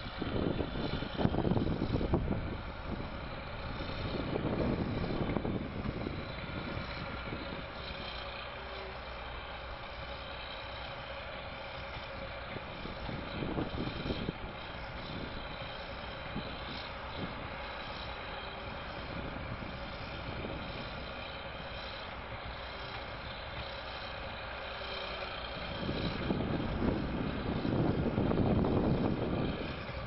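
Crawler bulldozer's diesel engine running as the dozer pushes soil, louder and heavier in the first few seconds and again near the end, quieter and steady in between.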